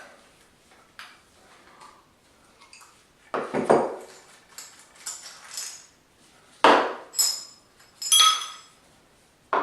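Metal parts of a door lock installation kit's hole saw and drilling jig clanking and knocking together as they are handled, in a few separate knocks, the last one ringing briefly.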